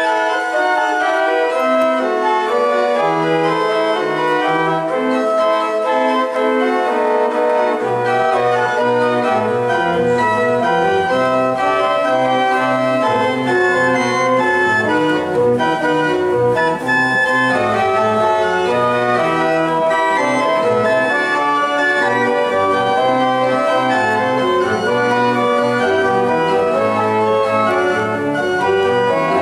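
Two-manual organ playing a piece in sustained chords with moving upper lines; deeper bass notes join about eight seconds in and run on beneath.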